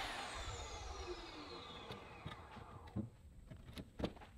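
A power saw winding down after a cut, its whine falling in pitch and fading over about two seconds, then two sharp knocks about three and four seconds in.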